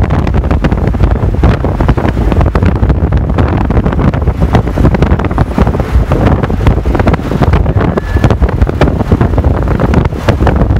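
Loud wind buffeting the microphone at the open window of a moving vehicle, over the low rumble of the vehicle running on the road.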